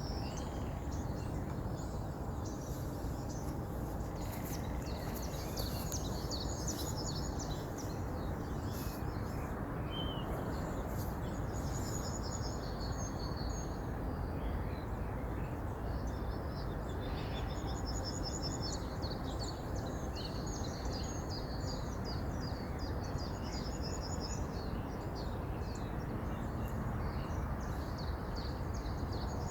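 Steady rush of a flowing river, with small birds chirping and trilling over it in short repeated phrases.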